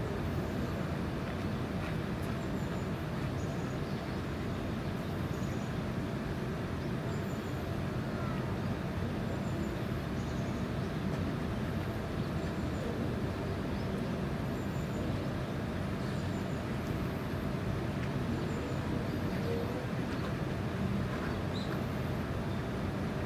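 Steady low background rumble, with faint short high chirps now and then.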